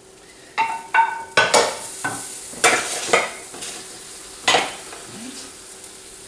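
A metal cooking utensil knocking and scraping against cookware about seven times, several of the knocks ringing briefly, as the cooked salmon fillet is moved onto the plate.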